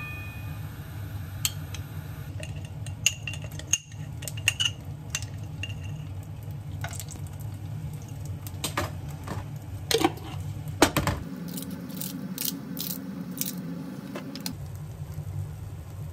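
Metal spoons clinking and tapping against a nonstick frying pan as gochujang, sugar and garlic are scooped in, over a steady low hum. The sharpest clinks come about ten and eleven seconds in.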